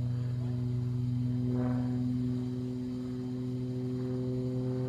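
Aerobatic airplane's engine and propeller droning steadily overhead, one low even note with overtones, while the plane climbs trailing smoke into a loop.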